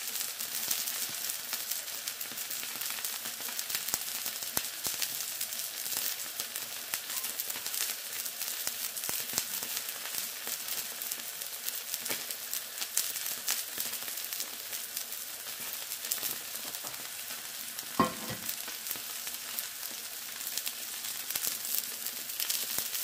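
Smashed beef burger patties sizzling and crackling in a nonstick frying pan, a steady hiss with dense small pops. A single brief knock sounds about three-quarters of the way through.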